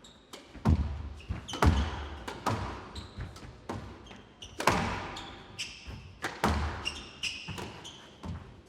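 Squash rally: the ball cracking off rackets and echoing off the court walls at a steady pace, with short high squeaks from players' shoes on the court floor.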